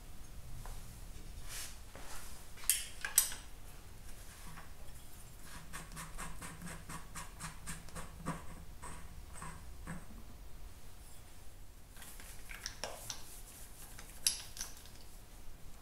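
Hand tools and small metal parts clicking and clinking against the aluminium primary cover of a 1951 Vincent Rapide as its fittings are undone. Two louder sharp clicks come about three seconds in, then a quick run of light ticks in the middle, and another sharp click near the end.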